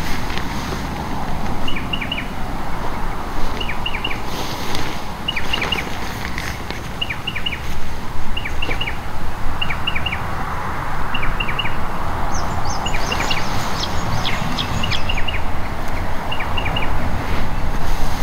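A bird repeats a call of three quick, falling chirps about every second and a half, over a steady rushing noise. About two-thirds of the way in, a second, higher-pitched bird joins with a rapid run of chirps.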